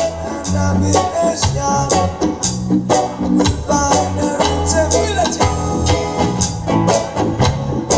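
Live one-drop roots reggae: a hand-played djembe, a strummed guitar and keyboard over a deep, steady bass line, with drum strokes keeping a regular beat.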